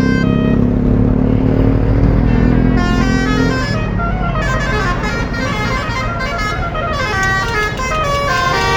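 A bus's Basuri 'telolet' multi-tone musical horn playing a quick tune of stepped notes, with a low steady drone beneath it for roughly the first three seconds.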